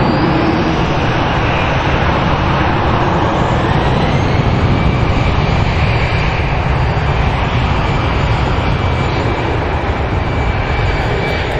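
Airbus A319's twin jet engines at high power during its takeoff roll: a loud, steady roar with a thin fan whine that rises in pitch during the first few seconds and then holds steady.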